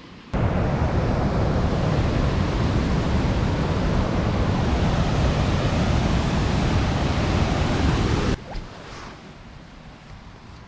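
Rushing water of a waterfall, a loud, steady, even rush that cuts in abruptly just after the start and cuts out abruptly about eight seconds in.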